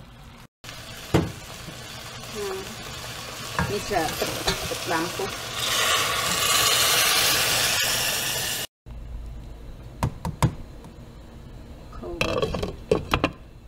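A metal spoon scrapes and clinks as it stirs pork chunks and peanuts in a hot stainless steel pot, with light sizzling. About five and a half seconds in, water poured into the hot pot sets off a loud, steady hissing sizzle that lasts about three seconds and cuts off abruptly. A few sharp clicks follow a couple of seconds later.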